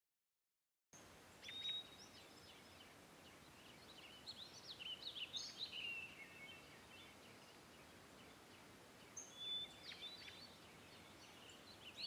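Faint songbirds chirping and whistling in short scattered bursts over a soft outdoor hiss, starting about a second in.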